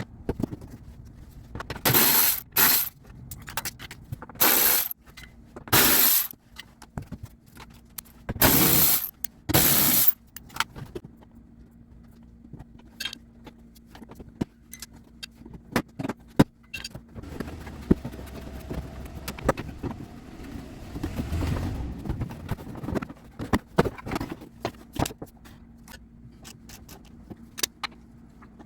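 Metal tools and bolts clinking, rattling and scraping during hand work on a car's engine mount bolts: several loud short rattling bursts in the first ten seconds, then scattered light clicks and a softer stretch of scraping noise.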